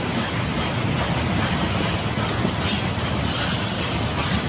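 Freight train wagons rolling over the rails: a steady rumble of wheels with a high wheel squeal that comes and goes as the cars take the curve.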